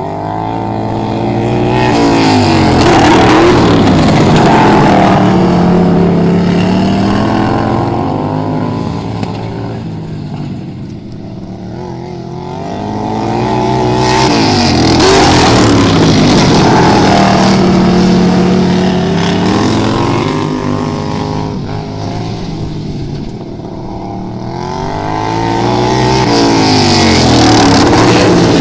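Racing lawnmower engines revving up and down as the mowers lap a track. The sound swells as they come near and fades as they move away, about every eleven seconds.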